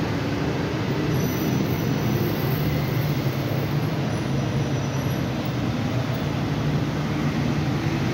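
São Paulo Metro Frota K train (K08) pulling into the station along the platform, a steady low rumble of wheels on rail. Faint high tones come and go in the first half.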